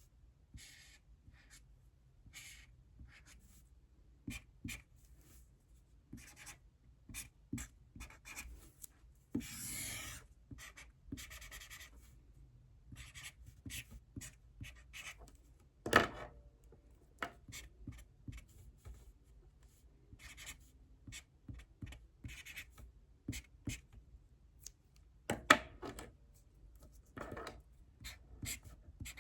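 Handwriting: a series of short, scratchy pen-or-pencil strokes, with a longer scratch about ten seconds in and a few sharper taps, the loudest about halfway through and again near the end.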